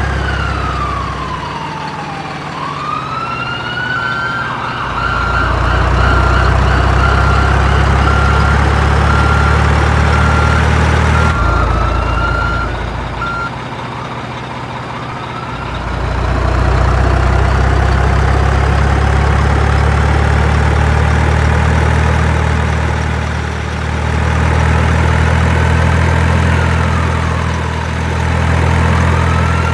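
A siren wailing, its pitch rising and falling slowly, over a steady low engine hum. The sound changes abruptly about eleven seconds in.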